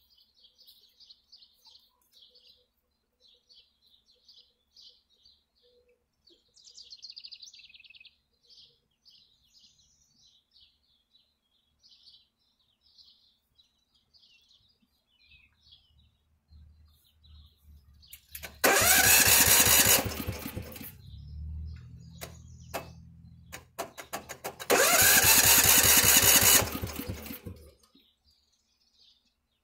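Riding lawn mower's Honda engine cranked by its electric starter in two bursts of about two seconds each, with a lower hum between them. It does not settle into running, as fits an engine with no spark. Birds chirp faintly beforehand.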